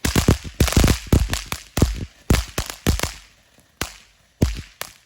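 Fireworks going off in quick succession: a string of sharp bangs and cracks, several a second at first and then thinning out to a few last single bangs.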